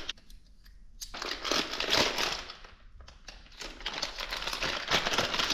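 Packaging crinkling and rustling in two stretches as a new motorcycle drive chain is unwrapped, with a quieter gap between them.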